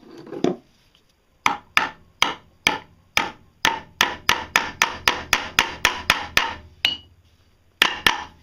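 Hammer blows on metal parts set in a white plastic disc: a run of about sixteen sharp strikes that quickens to about four a second. A single strike with a brief ring follows, then two more strikes near the end.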